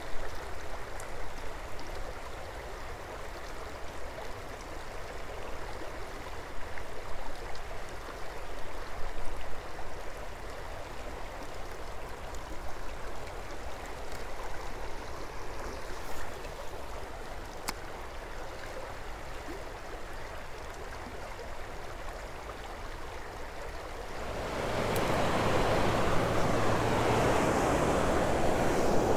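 Creek water flowing over a shallow, rocky bed with a few faint clicks. About 24 seconds in, the water gets clearly louder as the rushing of a riffle takes over.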